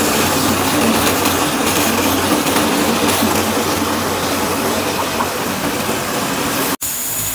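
Wood lathe spinning a spindle while a motor-driven rotary cutter head carves its profile: a loud, steady whir and hiss of cutting wood over a low machine hum. It cuts off suddenly near the end, leaving a quieter steady hum.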